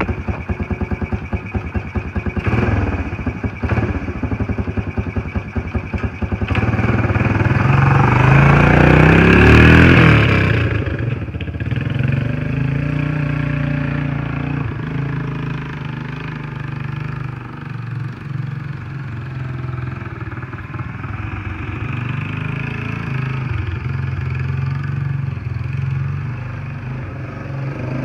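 Honda TRX300 ATV's single-cylinder four-stroke engine, first running with even, rapid firing pulses, then revving up as the quad pulls away about six seconds in, loudest near ten seconds. It then runs on further off, its note rising and falling as the throttle changes.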